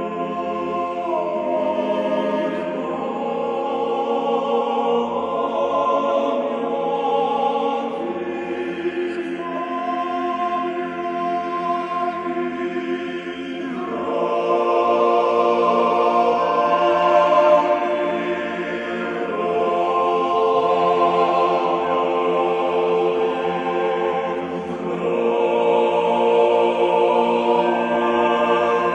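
Men's choir singing an Orthodox panikhida (memorial service) chant a cappella, in held chords that shift every few seconds, swelling louder about halfway through and again near the end.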